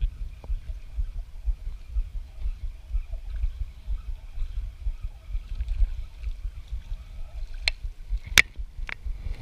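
Steady low rumble of handling and wind noise on a chest-mounted camera while an angler works a spinning rod and reel, with a few sharp clicks near the end.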